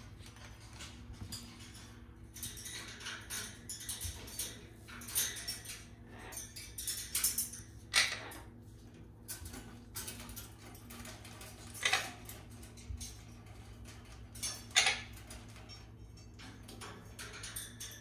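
African grey parrot's beak clicking and tapping against stainless steel cage bars and a water bottle, in scattered short clicks with a few sharper, louder ones.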